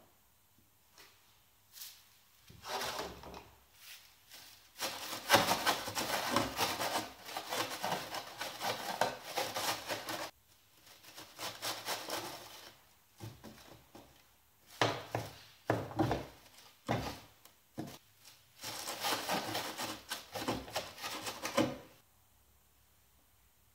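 Rubber-gloved hands sweeping and rubbing loose black crumbly material and shavings across a wooden tabletop: repeated spells of gritty scraping a few seconds long, with short pauses between, stopping a second or two before the end.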